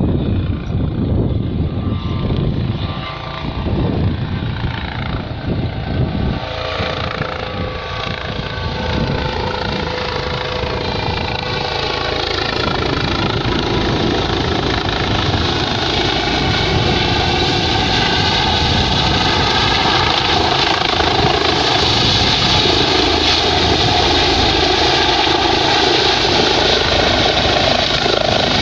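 Eurocopter EC135 helicopter coming in to land. The rotor and turbine noise grows louder over the first half, its pitch sliding as it approaches. It then settles into a steady loud rotor beat with a high turbine whine as it hovers and sets down.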